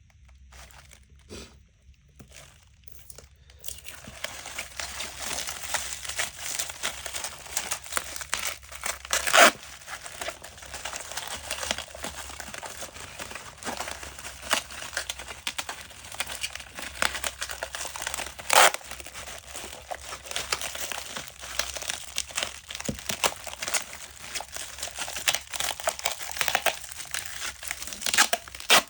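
Dry material crinkling and tearing continuously, starting about three and a half seconds in, with a few louder sharp crackles.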